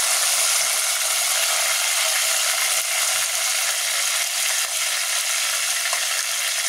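Sliced onions frying in hot ghee with whole spices, a steady sizzling hiss.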